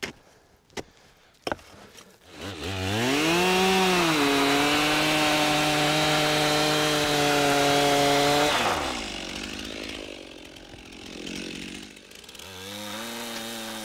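A few sharp knocks of a hand tool at the base of the tree, then a two-stroke chainsaw engine driving a ring-milling cutter: it starts, revs up and runs steadily at high revs while milling a band through the bark to girdle the tree and stop its sap flow, then drops away, and revs up again near the end.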